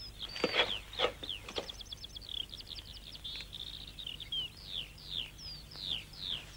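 Bird-like chirping: a long run of quick, high, downward-sliding whistled chirps with a fast trill about a second and a half in. A few short lower sounds break in during the first second and a half.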